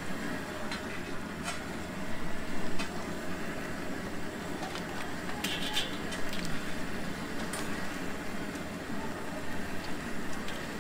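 Battered food deep-frying in a large wok of oil, the oil sizzling steadily, with a few short metallic clinks from the wire skimmer.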